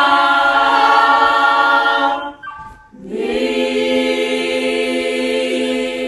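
Youth choir singing a hymn a cappella. They hold a long chord, break off about two seconds in, then come back on another long held chord.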